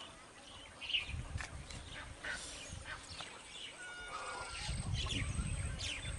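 Small birds chirping in many short, high calls, with a brief held whistle near four seconds. A low rumble comes in about a second in and again from around four and a half seconds.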